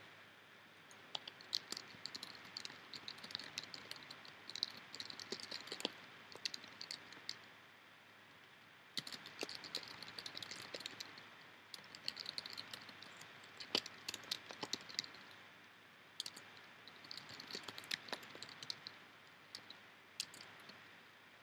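Typing on a computer keyboard: quick irregular key clicks in runs of a few seconds, with short pauses between runs.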